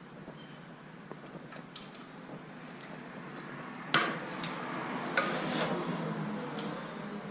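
Hand tools clinking and being handled during bicycle work, with a sharp metallic clack about four seconds in followed by a couple of seconds of rattling and rummaging.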